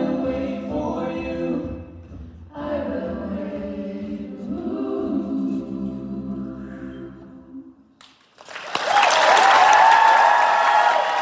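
Mixed-voice a cappella group singing the closing chords of a song, the last chord fading out. After a moment's silence, about eight seconds in, the audience breaks into loud applause and cheering.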